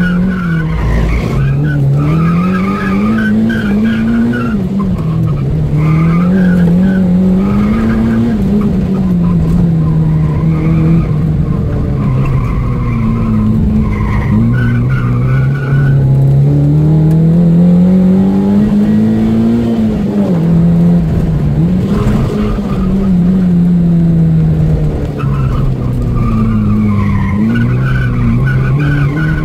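Opel Astra GSi engine heard from inside the car on a track lap, revs climbing and dropping again and again as it accelerates and brakes between corners. The tyres squeal now and again through the turns.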